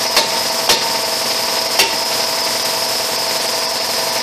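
Three sharp hammer knocks in the first two seconds on a rusted front brake rotor that is stuck on the hub, struck to break it loose. A steady machine hum with a high whine runs underneath.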